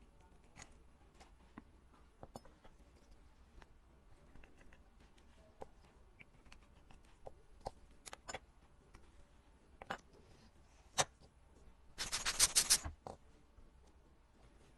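Small, sharp clicks and taps of tools and parts being handled during watch repair, scattered and irregular. About twelve seconds in comes a quick run of clicks lasting about a second, the loudest sound here.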